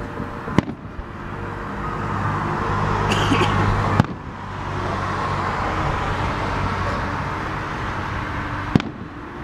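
Fireworks going off: three sharp bangs, about half a second in, near four seconds and near the end, over a steady background rumble.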